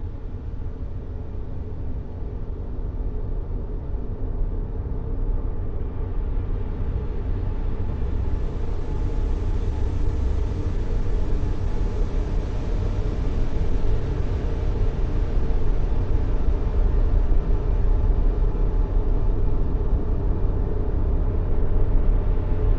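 A steady sleep noise track, an even rushing noise heavy in the low end, with no rhythm or tones, slowly growing louder over the first half and then holding level.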